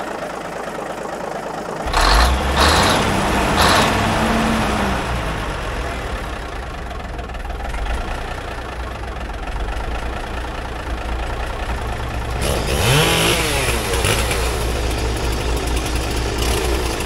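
Engine of a 1950s Euclid off-road truck that had sat for over ten years, catching about two seconds in and revving briefly, then running steadily, with a rising rev-up about thirteen seconds in.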